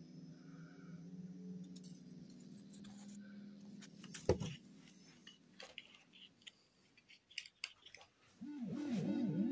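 A low steady two-note drone fades out over the first few seconds, then a sharp click about four seconds in and scattered small clicks and clinks of handling. Near the end a loud wavering tone begins, swooping quickly up and down in pitch as the music starts.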